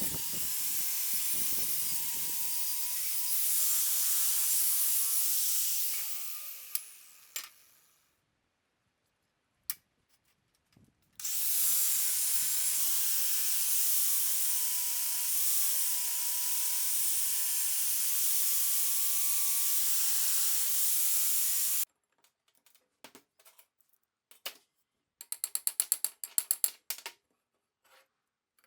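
Power tool cutting or grinding steel, running in two long stretches with a steady whine that dips under load. The first stretch winds down as the tool is switched off, and the second stops abruptly. Scattered clicks follow, then a quick rattling run of clicks near the end.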